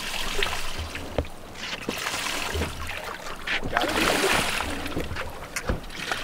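Water splashing and sloshing against the side of a fishing boat as a hooked fish is worked up to the rail, with a few sharp knocks.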